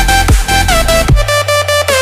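Energetic electronic dance music: synth lines over heavy bass and a kick-drum beat. The bass and drums drop out a little past halfway.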